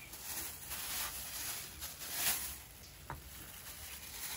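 Faint rustling and squishing of salad ingredients being handled in a bowl, coming in soft swells, with a small click about three seconds in.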